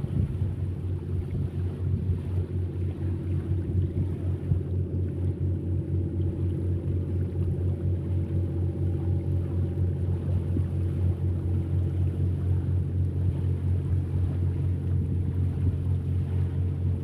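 Boat engine running steadily at constant speed, a low drone with a fast, even pulse.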